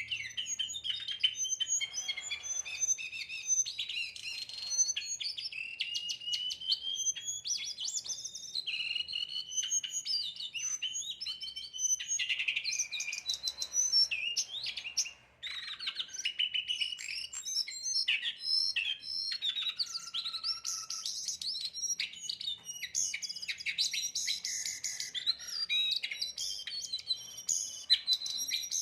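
A jongkangan songbird singing a long run of chirps and whistles, broken by slow rising siren-like glides.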